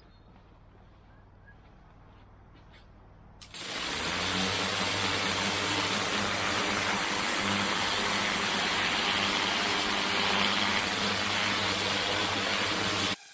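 Pressure washer running, first as a low engine hum; about three and a half seconds in the gun opens and a loud, steady hiss of the high-pressure water jet on paving takes over, with the engine labouring under the load. The spray cuts off suddenly near the end.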